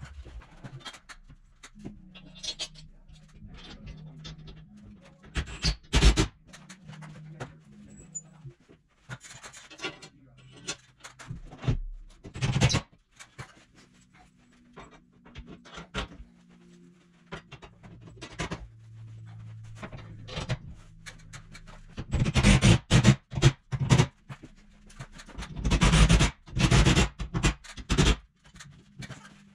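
Cordless driver running screws in bursts to fasten a barn door's metal track to a wooden backer board, the longest runs near the end, with scattered knocks of tool handling between them.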